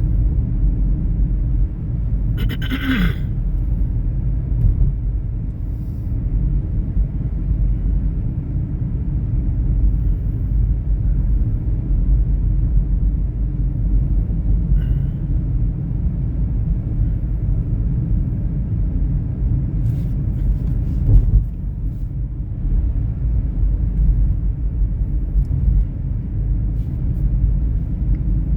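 Steady low rumble of a running vehicle, with a brief higher squeak that drops in pitch about three seconds in and a short click about 21 seconds in.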